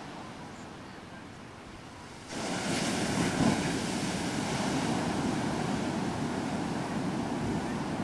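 Heavy surf breaking and washing up the beach, with wind buffeting the microphone. The sound jumps suddenly louder about two seconds in.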